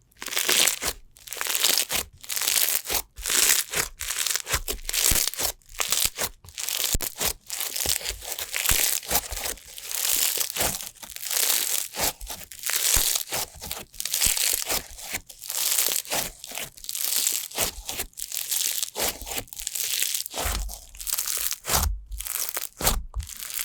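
Slime being played with by hand: an uneven stream of short noisy bursts and sharp pops, several a second, close up.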